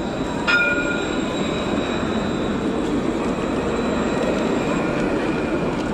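A tram passing close by, running with a steady rolling noise and a faint high whine. About half a second in comes a single sharp metallic ring, the loudest moment.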